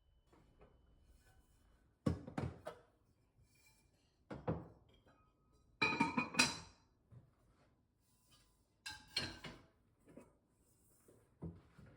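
Dishes and glassware being handled in a kitchen: a few separate knocks and clinks, the loudest near the middle ringing briefly like glass or ceramic.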